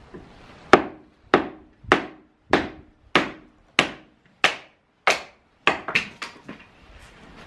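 A hammer striking a piece of firewood held upright on a chopping block to split kindling: nine sharp, even blows about every 0.6 s, then a few lighter, quicker knocks near the end.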